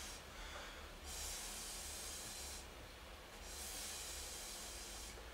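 Air blown through a harmonica into a balloon to inflate it: two long breathy hisses, with short pauses for breath between them and no reed note sounding.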